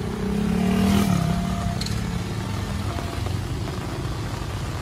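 Motorcycles riding past on a wet road, engines running, with one revving up close by and loudest about a second in.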